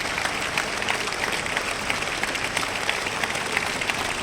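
Large crowd applauding steadily: many people clapping at once in a dense, unbroken patter.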